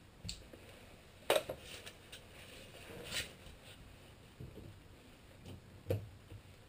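A few sharp clicks and knocks from hands-on work, about three in all, the loudest about a second and a half in, with faint handling noises between.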